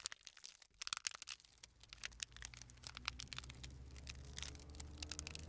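Beer being poured and fizzing in a glass: a crackle of many small sharp ticks from popping bubbles, densest in the first second, over a low hum. From about three seconds in, a faint tone slowly rises in pitch.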